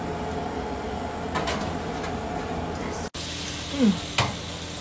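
Steady sizzling hiss of a hot roasting tin of chicken and its pan juices just drawn from the oven, with a couple of short clicks from the tin.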